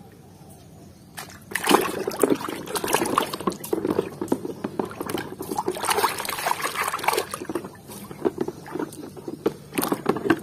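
A hand swishing and scrubbing in a tub of soapy water, with irregular splashing and sloshing that starts about a second and a half in.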